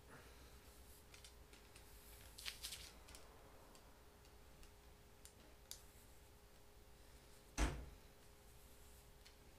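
Faint handling clicks and taps of arrow shafts as they are pushed into a bow-mounted flip-flop limb quiver on a longbow, with a small cluster of ticks about two and a half seconds in and one louder knock near the end.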